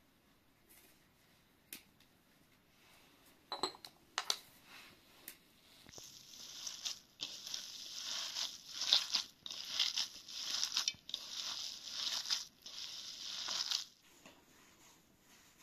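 Raw minced meat mixed with grated onion and spices being kneaded and squeezed by hand in a bowl, a wet squishing noise in uneven bursts from about six seconds in until near the end. A couple of light clinks come first, from a spoon against the ceramic spice jars.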